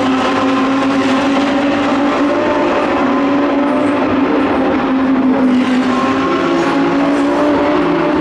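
Several GT3 race cars' engines running hard, a continuous loud engine note that drifts slowly up and down in pitch.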